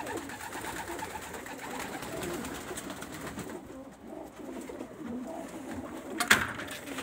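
Domestic pigeons cooing inside a loft, a steady overlapping murmur of calls, with one sharp knock about six seconds in.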